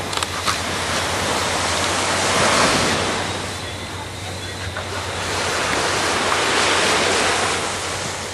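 Surf breaking and washing up a beach, two long swells of rushing noise, the first building about two and a half seconds in and the second around six to seven seconds. A few light knocks sound near the start.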